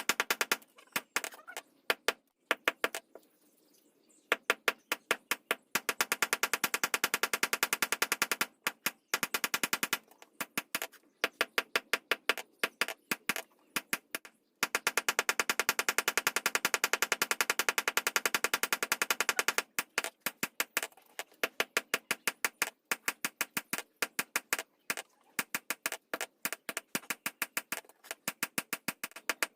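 Rapid, regular hammer taps on metal, about six a second, each with a short ring, coming in runs broken by brief pauses.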